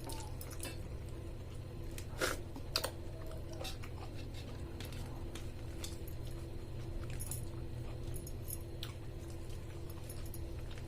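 Chewing and small mouth sounds of a person eating rice with vegetable curry and roasted okra, over a steady low hum. Two sharper clicks a little over two seconds in, half a second apart, are the loudest sounds.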